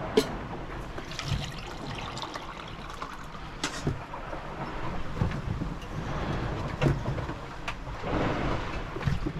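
Sailing yacht under way at sea: water rushing along the hull with wind buffeting the microphone, a swell of wash about eight seconds in, and a few sharp knocks from the boat.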